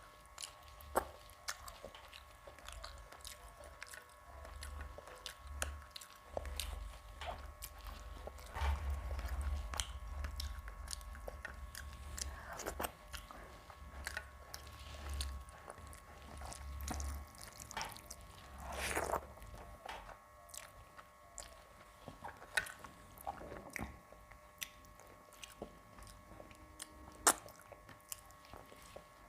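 Close-miked chewing and wet mouth sounds of a person eating a meal of rice and curries, with many small sharp clicks scattered throughout.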